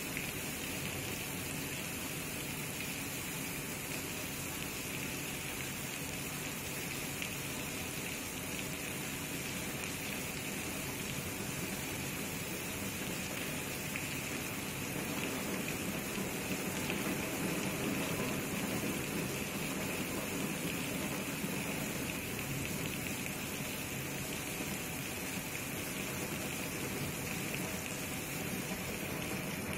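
Heavy rain falling steadily, a continuous hiss of downpour that swells a little for a few seconds around the middle.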